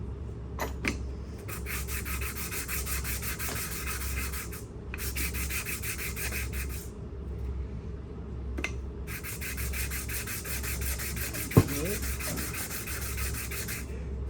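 Sandpaper rubbed quickly back and forth over a pump part to clean it, in three spells of rapid scraping strokes, with a single sharp click about two-thirds of the way through.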